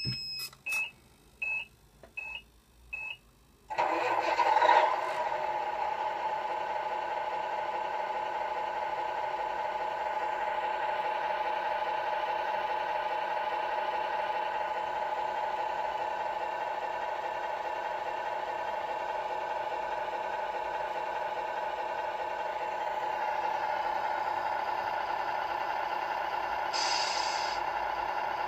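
Five short electronic beeps, then the Tamiya MFC-01 sound unit in a Scania R620 RC truck plays a simulated diesel engine starting through its small speaker and settling into a steady idle. A short hiss comes near the end.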